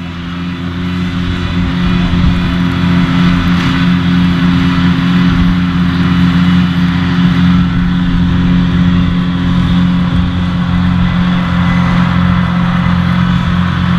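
New Holland T7 tractor's diesel engine pulling steadily under load, with the whirr of its front and trailed rear disc mowers cutting grass. It grows louder over the first two seconds as it draws close, then holds steady.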